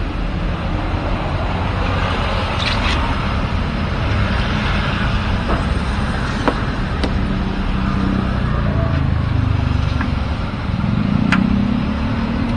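Steady rumble of road traffic, with a few faint clicks.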